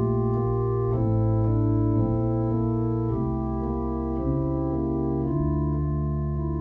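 Organ music: slow, sustained chords with a deep bass, the chord changing roughly once a second.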